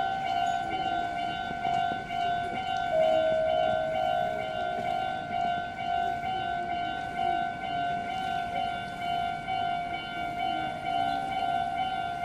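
Japanese railway level-crossing warning bell ringing continuously as a train approaches. It gives a steady electronic ding whose main pitch drops slightly about three seconds in and rises back near the end.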